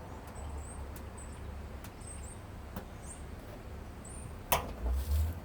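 Hand tool and hand working a screw out of a washing machine's panel: low handling rumble, a single sharp click about four and a half seconds in, then a couple of dull knocks.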